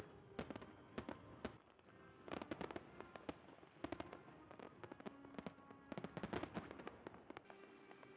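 Fireworks display: a rapid series of sharp bangs from shells bursting overhead, packed densest about two to three seconds in and again around six seconds in, with music playing faintly underneath.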